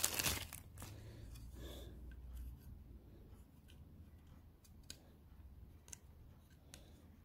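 A clear plastic parts bag crinkling briefly at the start, then faint scattered clicks and rubs of fingers handling a plastic oil pickup tube and its O-ring seal.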